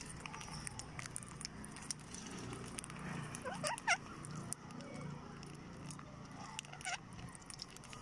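Rose-ringed parakeets pecking at scattered grain, with a steady patter of small clicks, broken by a quick run of short squawks about halfway through and another brief squawk near the end.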